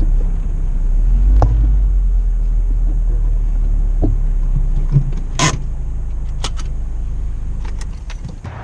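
Car driving, a steady low road rumble heard from inside the cabin, with a few light clicks and ticks; the rumble eases off near the end.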